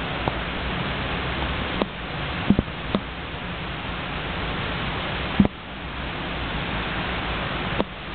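Steady, dense noise of a large stadium crowd as picked up on a phone microphone. It is broken by several short sharp knocks, the loudest about two and a half and five and a half seconds in.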